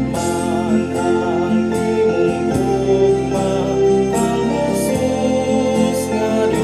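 Background devotional music with sustained chords and a light, even beat.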